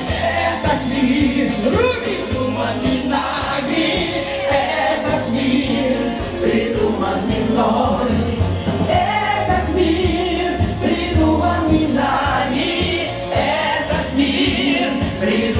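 Live singing into a microphone over a recorded backing track with a steady bass beat, amplified through a loudspeaker.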